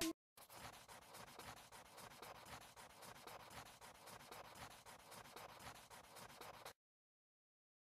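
Faint pencil scratching on paper, a continuous run of quick sketching strokes that cuts off abruptly to silence.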